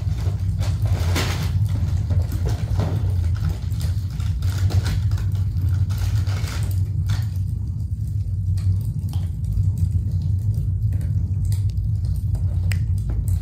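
Steady low rumble, with scattered soft clicks and rustles over it.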